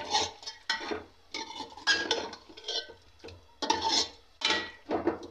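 Metal spoon scraping and clinking against a metal cooking pot, about two strokes a second, stirring chicken pieces in masala to brown them.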